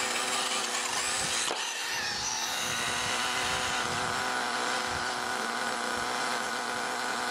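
Small .59 nitro engine of an HPI Savage XL 5.9 running steadily at standstill during break-in, with the whine of a small battery-powered RC car's electric motor as it drives off; the whine rises about a second and a half in.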